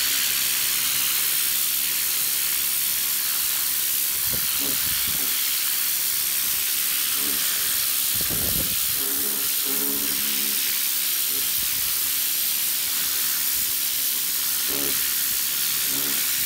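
Ryobi pressure washer jet spraying onto a carpet mat, a loud, steady hiss of high-pressure water with a faint steady hum underneath.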